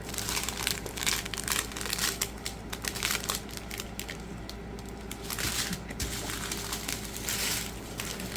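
Plastic packaging crinkling and rustling as it is handled, in irregular crackly bursts.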